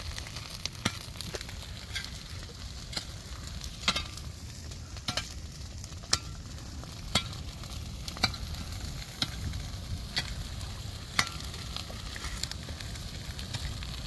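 Dry brush burning in a wildfire, crackling with sharp irregular pops about once a second. The flames are a backfire being set along a trail.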